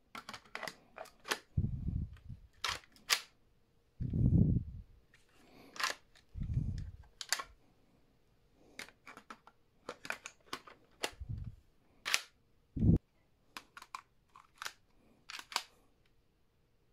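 Sharp plastic clicks and clacks of LEGO bricks as brick-built toy guns, a rifle and then a pistol, are reloaded and their mechanisms worked, in quick clusters throughout. Several low gusts of wind buffet the microphone in between, the loudest a little after four seconds in.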